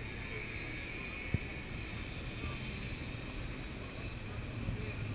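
Steady outdoor background noise with a low rumble and hiss, and a single sharp click just over a second in.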